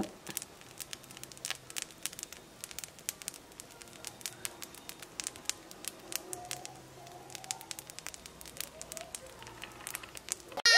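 Semolina baghrir batter cooking in a hot pan: faint, irregular crackling with small scattered clicks as its holey top sets and nearly dries.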